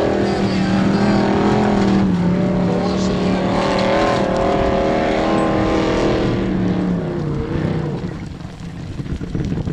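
Formula Offroad 4x4 race car engine held at high revs under full load as the car climbs a steep sand hill, its note loud and steady. About seven to eight seconds in the engine note drops away and fades as the car tops the slope.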